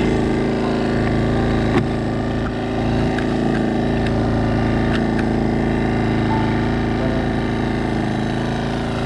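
Small outboard motor running steadily at idle, with a single brief knock about two seconds in.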